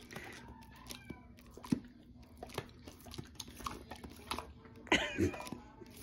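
Hand-held spray bottle squirting again and again at a Bernese Mountain Dog, short sharp spritzes at an irregular pace, mixed with the dog's snapping jaws. About five seconds in, the dog gives a short bark, the loudest sound.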